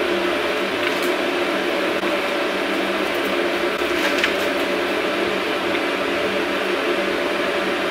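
A steady machine hum with several constant tones, unchanging throughout, with a faint brief click or rustle about four seconds in.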